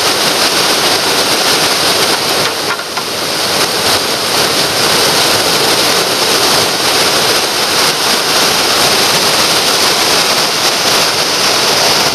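Whitewater rapid pouring over a rocky drop: a loud, steady rush of churning water.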